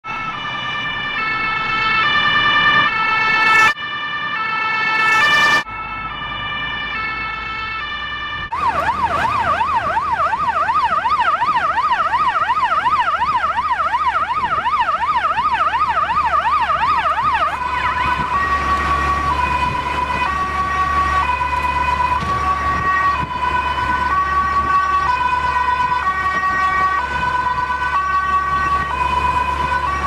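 Swedish police car siren. It opens as a two-tone signal stepping between a high and a low pitch about every half second, broken twice by a loud swell that cuts off suddenly. About eight seconds in it switches to a fast up-and-down wail for around nine seconds, then goes back to a steady high-low two-tone.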